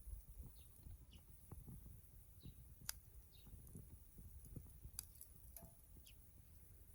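Small wood fire crackling faintly, with irregular soft knocks and two sharp pops, one about three seconds in and one about five seconds in.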